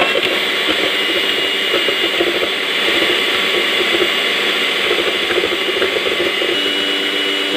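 Electric hand mixer running at speed, its twin wire beaters whisking raw egg whites in a bowl: a steady motor whine.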